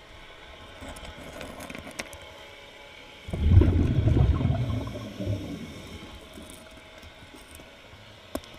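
Scuba diver's exhaled bubbles from the regulator: a sudden low rumbling burst about three seconds in that fades over a couple of seconds. A few faint clicks of stones being moved by hand come before and after it.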